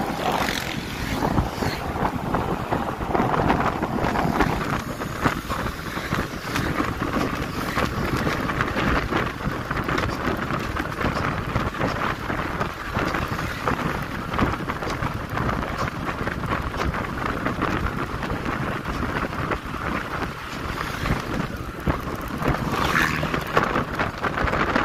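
Wind buffeting the microphone of a motorcycle-mounted camera as the bike rides along, with the engine and tyre noise underneath. A steady, even rush with no distinct events.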